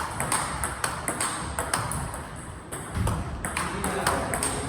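Table tennis rally of forehand drives: sharp clicks of the ball off a paddle faced with tacky Chinese Hurricane 3 rubber and off the table, a few per second with a short lull midway.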